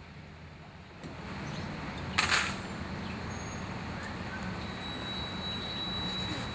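Street traffic rumbling steadily, with a short loud hiss like a vehicle's air brake about two seconds in and a thin high whine near the end.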